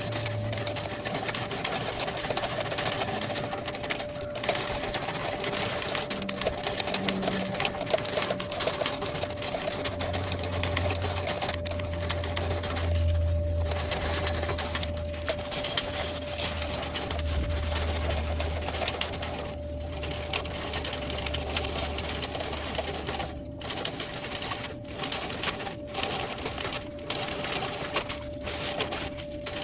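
Clothes dryer running and blowing air out through the vent, with a fast, steady mechanical clatter over a constant hum. A low rumble joins for several seconds midway.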